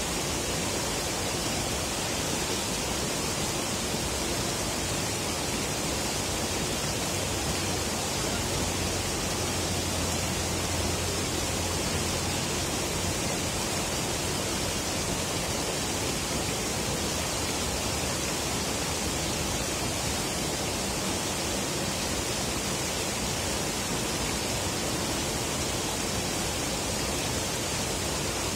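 Steady rushing of flowing river water, an even hiss with no pauses.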